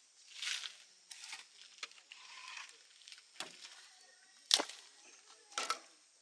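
Irregular rustling and about three sharp knocks, the loudest about four and a half seconds in.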